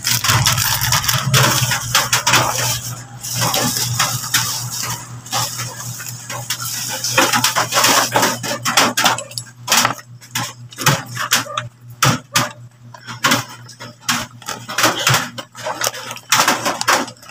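Plastic wrapping and bubble wrap crinkling and rustling as they are pulled off a solar floodlight by hand. The crinkling is dense for the first half, then breaks into separate crackles and light knocks of the lamp being handled.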